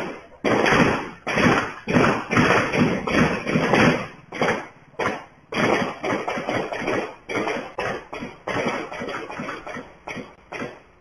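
A rapid, irregular series of sharp bangs or knocks, about two to three a second, each dying away quickly, growing sparser near the end.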